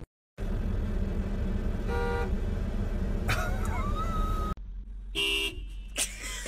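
Car horn sounding short toots over the steady rumble of a vehicle. About two seconds in there is a brief toot, followed by high tones that glide up and down. After a cut there is another short horn blast and then a sharp bang.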